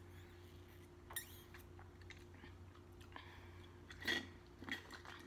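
Close-miked mouth sounds of drinking through a straw from a small plastic bottle: soft clicks and sips, then two louder slurps about four seconds in.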